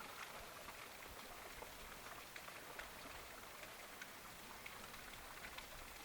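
Faint, steady patter, as of light rain: a soft hiss with many small scattered ticks.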